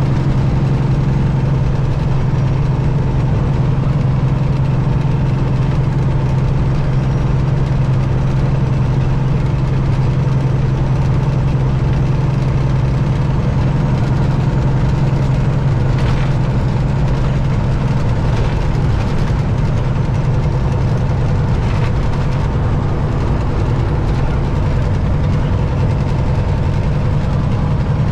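Detroit diesel engine of a Peterbilt 379 big rig running steadily at one constant speed, a deep even drone with no revving.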